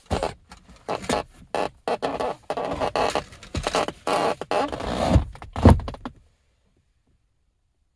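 Irregular rustling and scraping of things being handled, with a couple of low thumps near the end; it cuts off to silence about six seconds in.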